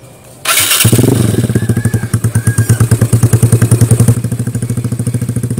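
Yamaha Mio scooter's single-cylinder four-stroke engine running through a blue aftermarket open 'brong' exhaust, very noisy, with a fast, even pulsing beat. It starts about half a second in and drops slightly after about four seconds.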